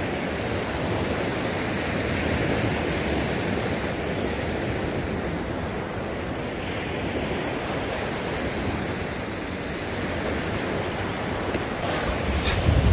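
Ocean surf breaking on a sandy beach: a steady wash of waves, with some wind. A few knocks and a low rumble near the end.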